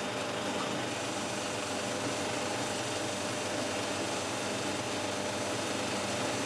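Cinema film projectors running in the projection booth: a steady mechanical hum with hiss and a few faint constant hum tones.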